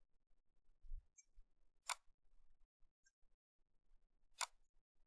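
Two sharp computer mouse clicks, about two and a half seconds apart, over near silence.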